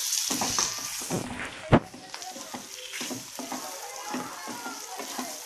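Boiled potatoes sizzling in hot spiced oil in a wok-shaped pan as they are stirred with a wooden spatula, with one sharp knock of the spatula against the pan a little under two seconds in.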